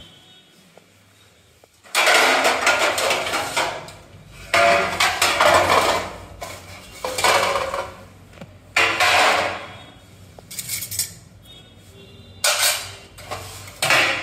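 Stainless steel plates and a compartmented thali tray clanking and scraping against each other as they are handled at a stack. It comes in a run of loud, irregular bursts starting about two seconds in.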